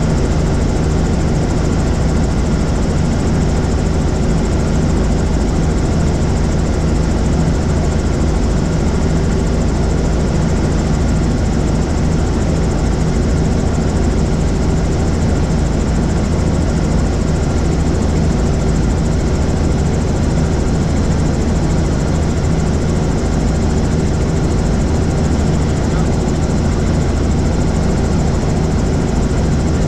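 Helicopter engine and rotor running steadily in flight, a constant loud drone with no change in pitch or level.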